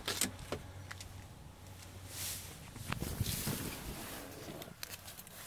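Rustling and a few sharp clicks and knocks as someone gets into the driver's seat of a parked car, engine not yet running.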